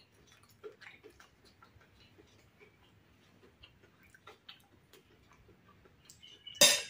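Close-up chewing of crispy fried tofu, heard as faint scattered crunches and small clicks. Near the end comes one loud sharp clatter with a brief ringing after it.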